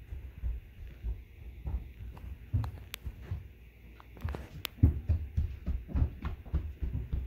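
Handling and movement noise from a hand-held phone being carried along a barbell: irregular low thumps and bumps, heavier in the second half, with a couple of sharp clicks.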